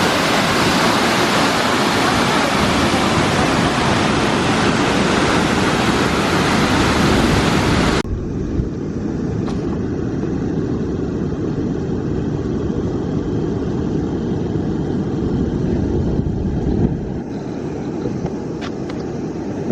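Steady rushing of Tahquamenon Falls, a full, hissing water noise. About eight seconds in it turns abruptly duller and a little quieter, the hiss gone and a low rumble left.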